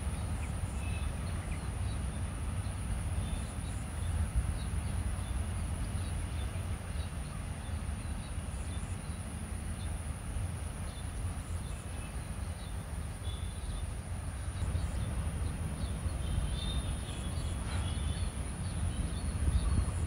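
Steady high-pitched drone of insects, over a constant low rumble, with a few faint short calls scattered through it.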